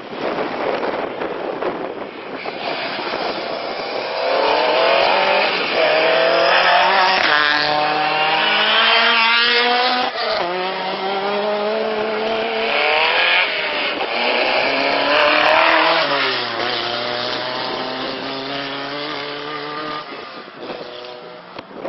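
Rally car engine at full throttle on a stage, its pitch climbing and dropping back at each gear change, several times over; it is loudest through the middle and fades near the end.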